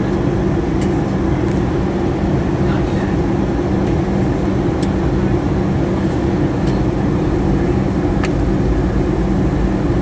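Steady in-cabin noise of a Boeing 737-800 in descent: airflow and CFM56-7B engine noise with a constant low hum, heard through the cabin.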